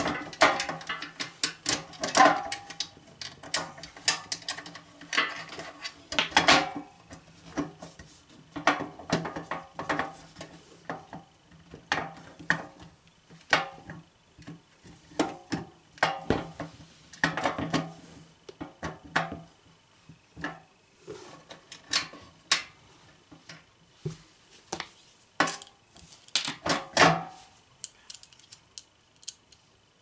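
Irregular metallic clicks, taps and clatter of a steel key safe being handled as its panel is fitted back and its screws put back in with a screwdriver.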